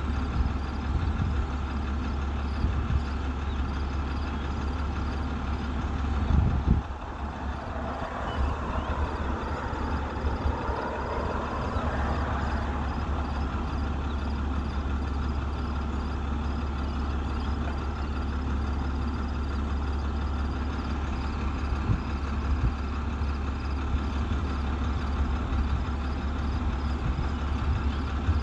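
An engine idling steadily with a low hum, with one sharp thump about six and a half seconds in and a faint wavering whistle a few seconds later.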